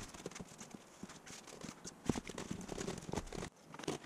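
Thin plastic wrapping tape crinkling and rustling as it is unrolled and wound tight around foam pipe insulation, with irregular small crackles that get busier about halfway through.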